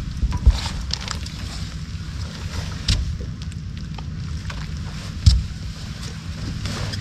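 Steady low wind rumble on the microphone aboard a fishing boat, with a few sharp knocks on the boat, the loudest about half a second in and again about five seconds in.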